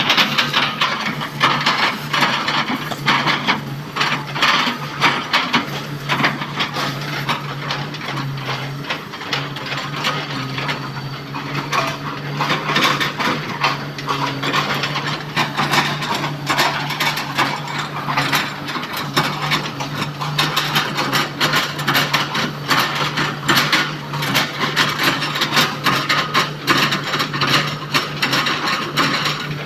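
Komatsu PC200 excavator's diesel engine running with a steady low hum, under dense, irregular cracking and knocking as the bucket chops an oil palm trunk into chips.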